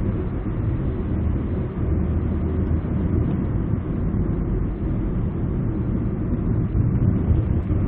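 Steady drone of a 2003 SM5 LPG car's engine and tyres heard from inside its cabin while driving on a highway, a low even rumble without breaks.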